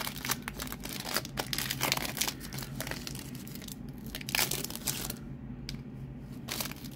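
Foil trading-card booster pack wrapper being torn open and crinkled, crackling for about five seconds, then going quieter with a few light clicks near the end.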